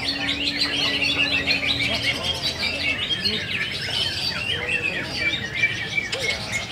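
Several caged cucak ijo (greater green leafbirds) singing at once, a dense stream of overlapping quick chirps and trills. A steady low hum runs under the song for the first two seconds.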